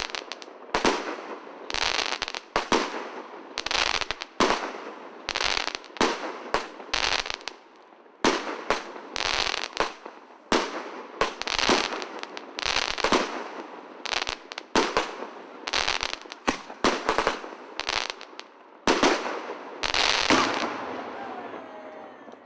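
Fireworks display: aerial shells bursting one after another in sharp bangs, about one or two a second, with crackling glitter between them. The last bangs come near the end, and the crackle fades away after them.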